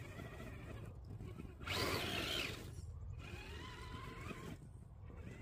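Electric drive motor and gearbox of an Absima Sherpa RC scale crawler whining, the pitch rising and falling with the throttle. A louder, brighter rev comes about two seconds in and lasts under a second.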